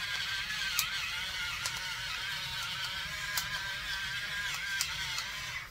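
A hand pepper grinder being turned over a pan of steak, potatoes, onions and mushrooms frying over a gas flame. A wavering high tone and a hiss run throughout, with a few sharp clicks.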